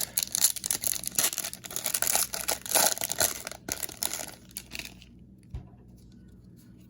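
Plastic foil trading-card pack wrapper being torn open and crinkled, a dense crackling that stops about five seconds in, followed by a single soft tap.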